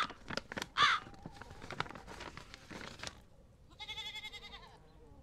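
Frightened hens squawking and clucking in alarm: two loud squawks at the start, quick clucks over the next two seconds, and a drawn-out wavering call about four seconds in. The alarm is taken as the sign that a snake may be about.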